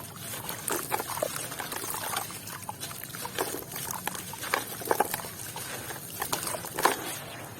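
Wet sand and red dirt crumbling into water, heard as many small irregular crackles and clicks with trickling.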